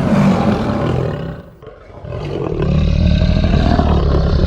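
Lion roaring: two long roars with a short break about a second and a half in.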